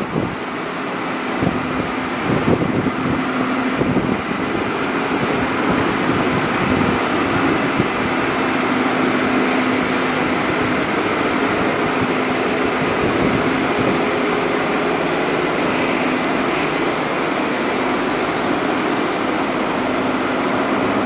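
Inland motor cargo ship's diesel engine running steadily as the ship moves slowly through the lock, a constant drone with a low hum.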